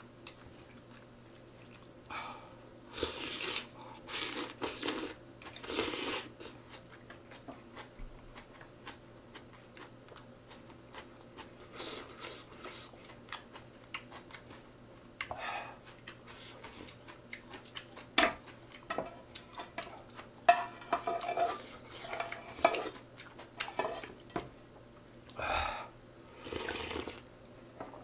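Metal chopsticks and a spoon clinking and scraping against a stainless steel pot of ramen as the noodles are fished out of the broth, with short noisy slurps of noodles now and then.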